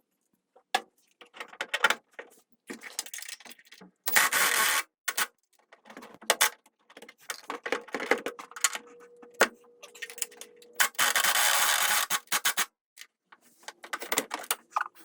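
Metal hardware and hand tools clicking and rattling as a hood-shock bracket is bolted in with a washer and locking nut, with two steady, hissy runs of a small tool or motor, about a second long near four seconds in and a little longer around eleven seconds in.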